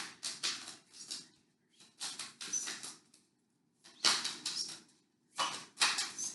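A deck of tarot cards being shuffled by hand, in four short bursts of rapid flicking with brief pauses between them.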